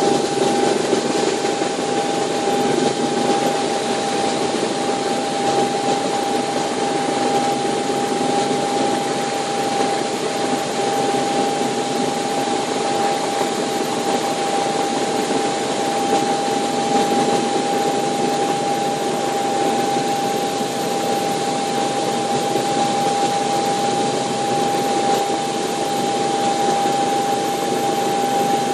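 Bell 430 twin-engine helicopter in steady flight, heard inside the cockpit: a constant hum of engines and rotor with a steady high whine over it.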